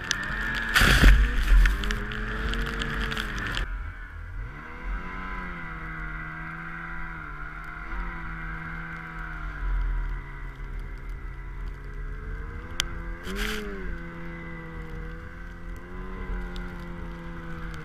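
Snowmobile engine running through deep powder, its pitch rising and falling as the throttle changes. A loud rush of snow spray comes about a second in, and a shorter one near the end.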